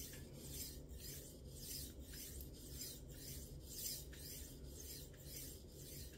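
Victorinox kitchen knife blade drawn back and forth on a Black Shark natural whetstone oiled with coconut oil: a faint, rhythmic scraping of repeated strokes, about two a second, at the semi-finishing stage of sharpening.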